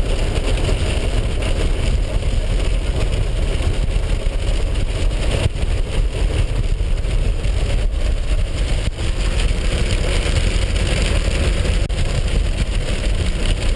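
Car running down a gravel mountain track, heard from inside the cabin: a steady low rumble of engine and tyres on the gravel.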